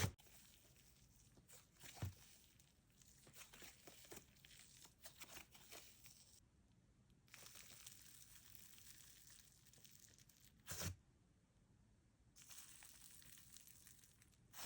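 Slime being squished and stretched by hand, giving faint, irregular crackling and sticky clicks, with a couple of louder pops.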